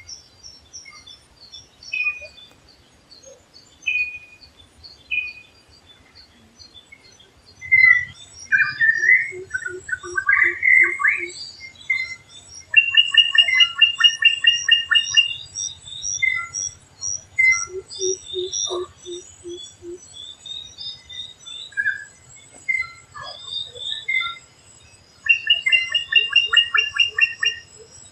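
Several forest birds calling over one another: short whistled notes, fast repeated trills, a warbling phrase, and a low series of five or six quick hoots that comes back several times.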